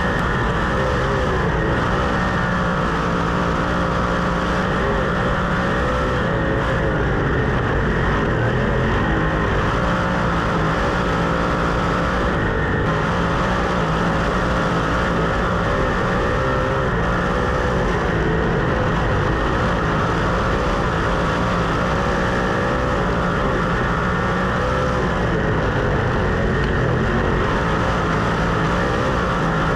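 Several 410 sprint car V8 engines running at race pace, their pitch rising and falling as they lap.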